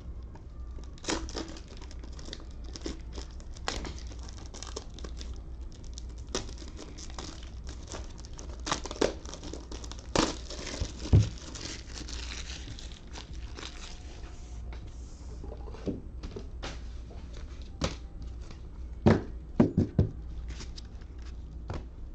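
Plastic trading-card pack wrapper crinkling and tearing as packs are opened. Scattered sharp knocks and taps come from the cards being handled.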